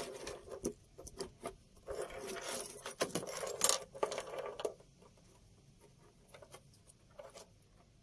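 Small clicks, metallic clinks and rustling as wires and their terminals are handled and fitted to a new ignition switch, busiest in the first five seconds, then only a few faint clicks.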